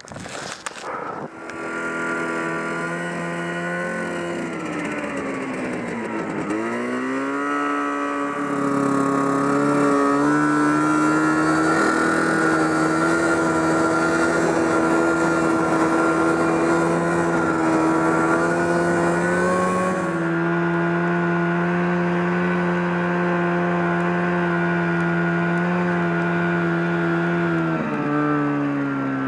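1974 John Deere 300 snowmobile's two-stroke engine running under way, heard close up. Its pitch falls and climbs back a few seconds in, then holds steady, easing down slightly twice later on.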